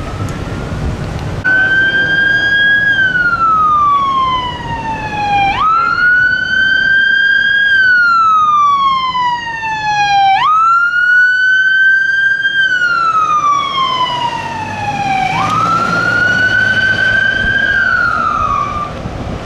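Siren of a pickup-chassis brush fire engine wailing as it drives past on an emergency (code 3) response. Four cycles about five seconds apart, each a quick rise in pitch followed by a slower fall.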